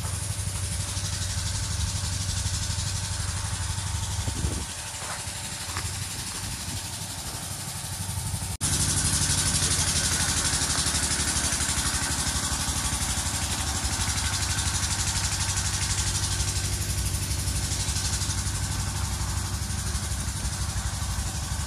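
A vehicle engine running steadily with a low hum. The sound jumps abruptly louder about eight and a half seconds in, then holds steady.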